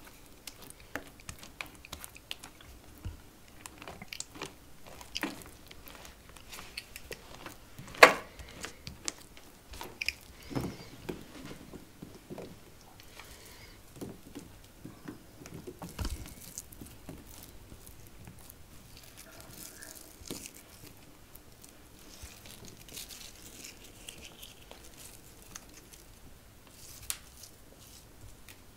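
Scattered quiet taps, clicks and crunches of food and kitchenware being handled, with one sharper click about eight seconds in.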